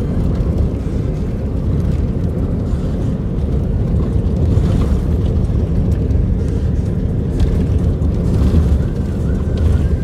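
Steady low rumble of a car driving on a gravel road, heard from inside the cabin with the side window open: tyre noise and wind buffeting the microphone.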